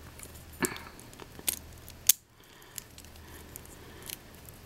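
Small plastic clicks as the folding legs of a Bakugan Spyderfencer trap toy are pressed in and clicked shut: a handful of sharp clicks, the loudest about two seconds in.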